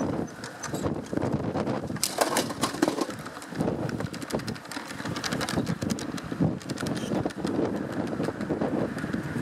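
Garden railway train rolling along the track, heard from a wagon: a steady rumble with many irregular clicks and knocks from the wheels on the rails.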